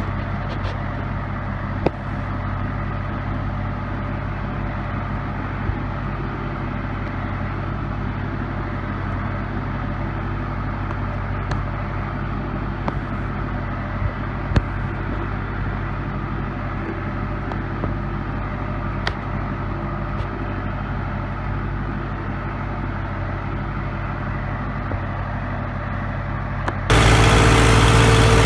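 CASE 580B backhoe's four-cylinder diesel engine running steadily at low speed, with a few light clicks and knocks from the machine. Near the end the sound jumps abruptly louder and harsher.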